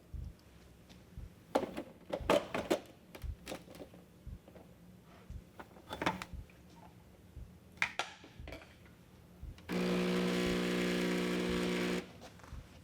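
Knocks and clicks of a portafilter being handled and tamped, then, near the end, a steady electric buzz for about two seconds that cuts off suddenly.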